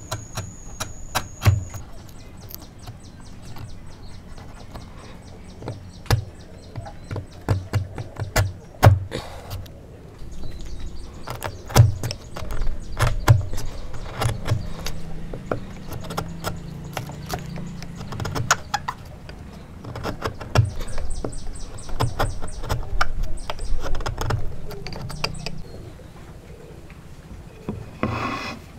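Steel chisel paring dovetail waste by hand: irregular sharp clicks and knocks as the edge cuts into the wood and chips split away.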